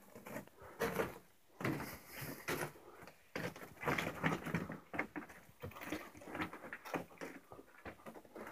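Irregular scuffing, scraping and knocking, with short pauses between bursts: a person moving over rock and grit in a cave while handling the camera.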